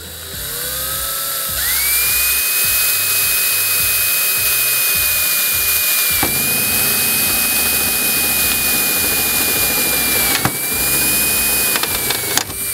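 Power drill running a very small bit into folded layers of metal roof flashing: the motor whine rises over about a second and a half, then holds steady with two brief catches. It stops near the end, where the thin bit snaps on the rounded edge of the flashing.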